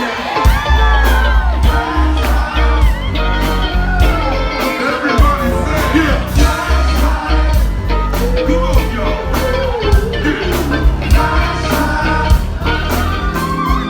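Live funk band playing loud, with sung vocals over a heavy bass line and a steady drum beat.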